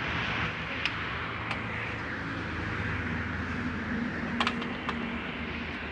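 A steady low machine hum with a hiss above it, broken by a few sharp metallic clicks and taps, a small cluster of them about four and a half seconds in.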